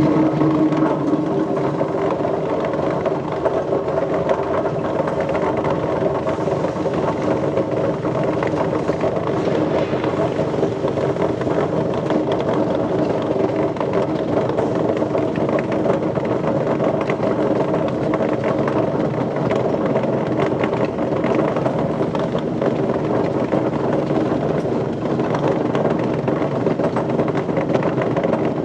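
Machinery running steadily, a constant pitched hum with a faint rattle.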